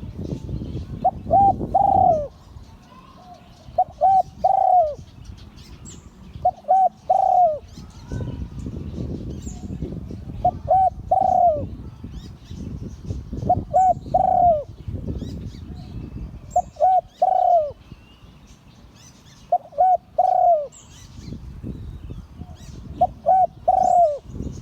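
Spotted dove cooing: a phrase of two or three short coos ending in a longer drawn-out one, repeated about every three seconds, eight times. Faint high chirps of small birds and a low rumble of background noise sit underneath.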